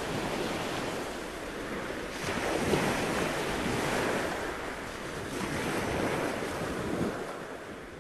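Ocean surf with no music: waves washing in with a steady rush that swells twice, then fades out near the end.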